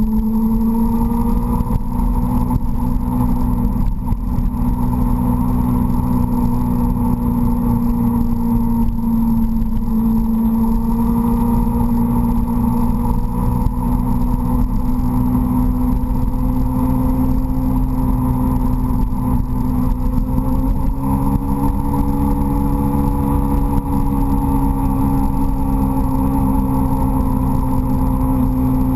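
Suzuki GSX-R sport bike's inline-four engine running at a steady riding speed, its pitch drifting gently and rising a little about two-thirds of the way through. A heavy low wind rumble on the bike-mounted microphone lies under it.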